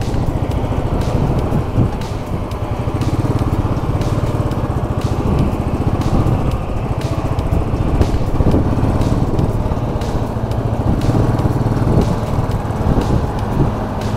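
Royal Enfield Classic 500 single-cylinder engine running steadily while the motorcycle cruises on the open road.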